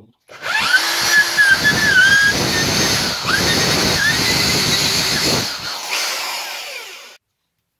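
Electric drill boring into a piece of wood clamped in a vise, with a wavering high squeal from the bit in the first seconds. About five and a half seconds in, the bit comes free of the wood and the drill runs on briefly before stopping.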